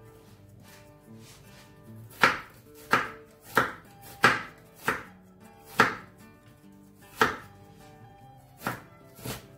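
Kitchen knife chopping a red onion on a wooden cutting board. A slow, slightly uneven series of sharp knocks, about nine of them, starts about two seconds in. Faint background music plays underneath.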